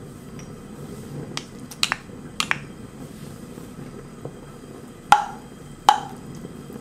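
Wooden spoon knocking against an enamelled wok while grated garlic goes into the oil: a few light clicks, then two sharp knocks with a short ring about five and six seconds in, over a faint sizzle.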